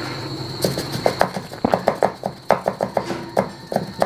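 Light, irregular tapping of fingers on a plastic funnel seated in a plastic pipe, knocking loose black powder from firecrackers down into the pipe.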